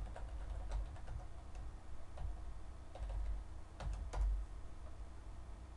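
Computer keyboard keys clicking at an irregular pace as a password and a short captcha code are typed, a handful of separate keystrokes, some with a low bump.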